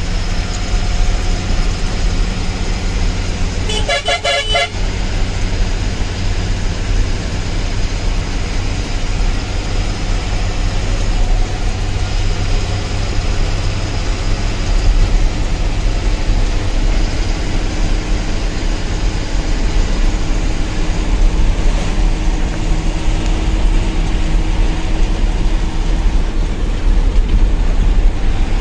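Truck engine running steadily on the road, with a horn sounding for about a second roughly four seconds in.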